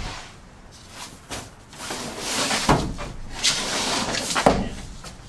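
A large thin sheet of leftover wall sheeting being dragged out of a cluttered storage cupboard: scraping and rustling, with three knocks as it catches and bends.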